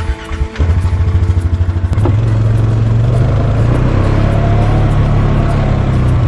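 A vehicle engine is started. It turns over with a brief whine, catches about half a second in, runs unevenly for a second or so, then settles into a steady run.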